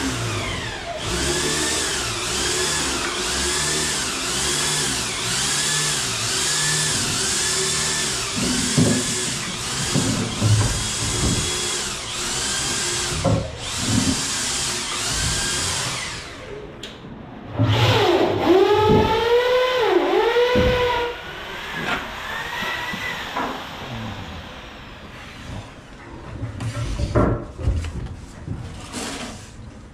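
Hand-held electric power tool running, its pitch dipping and recovering in a steady rhythm a little more than once a second. It stops about halfway through, then runs again with deeper swings in pitch for a few seconds before dying down.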